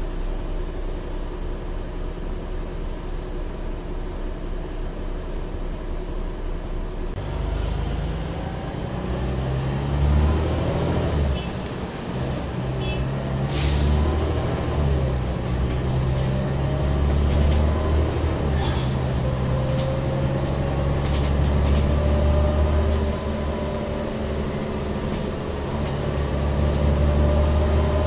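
Volvo Olympian double-decker bus's engine and ZF gearbox heard from inside the bus: idling steadily, then from about seven seconds in pulling away, the engine note rising and falling back with each gear change as the bus gathers speed. A short sharp hiss of air comes about halfway through.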